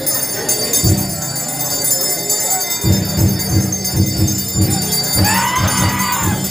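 Procession percussion: a drum struck in single strokes at first, then a steady beat of about three a second from about three seconds in, with bells jingling throughout. A voice calls out briefly near the end.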